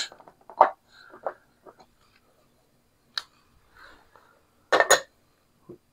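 Casino chips clicking and clacking as they are handled and stacked while change is made: a few scattered light clicks, with a louder clatter about five seconds in.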